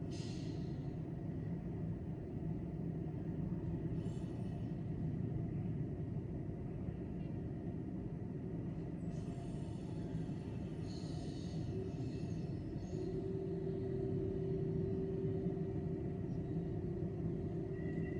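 Low, steady rumble of a railway station with a train, with short bursts of hissing noise near the start and in the middle, and a steady hum coming in about two-thirds of the way through.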